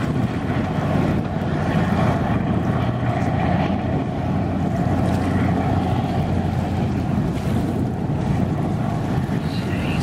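Kometa hydrofoil passing at speed on its foils: its twin diesel engines drone steadily under the rush of spray, with wind noise on the microphone.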